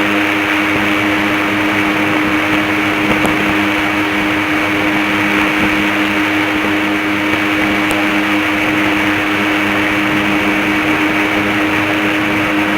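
Airboat engine and propeller running at a steady speed: a loud, unchanging drone with a constant hum over a dense rushing noise.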